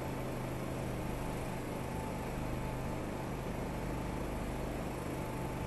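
Steady low hum over an even hiss, with no distinct events.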